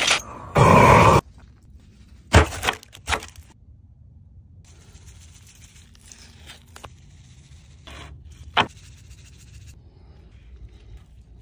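Lump hardwood charcoal poured from its bag into a metal drum-smoker charcoal basket: a loud rush of clattering chunks in the first second, then a few sharp clinks. Faint handling noise follows, with one more sharp click later on.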